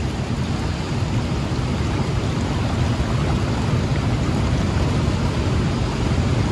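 Rushing water of a fast-flowing, ice-cold mountain stream, a steady even rush of noise.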